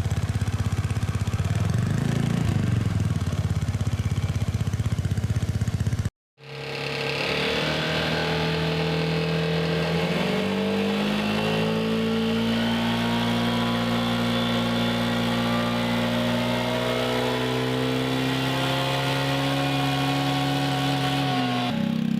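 Vespa GTS 300 scooter's single-cylinder engine through an aftermarket Scorpion exhaust, running with a pulsing beat, then after a brief cut running steadily at a higher, slowly rising pitch.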